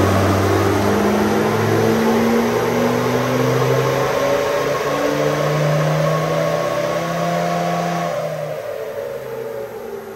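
Ford Ranger Wildtrak's 3.2-litre five-cylinder turbo-diesel, fitted with a G-Turbo and +30% injectors, under full load on a chassis dyno. The engine note climbs steadily in pitch for about eight seconds, then the throttle comes off and the engine and rollers wind down near the end.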